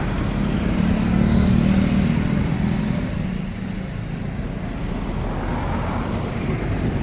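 Motor vehicle engine and road noise: a steady low hum that swells a little about a second in and eases off after about three seconds.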